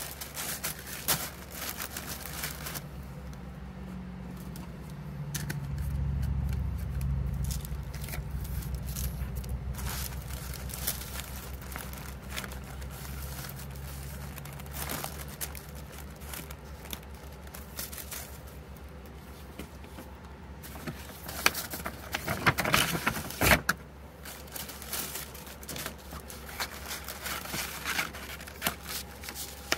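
Tissue paper crinkling and rustling as a parcel is wrapped and taped, in many small crackles, with a louder burst of crackling about two-thirds of the way through. A low engine rumble swells a few seconds in and fades away over the next dozen seconds.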